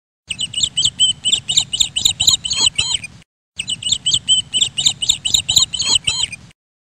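Birds chirping: a quick run of high chirps, about six a second, in two stretches of roughly three seconds each that start and stop abruptly with a short dead gap between.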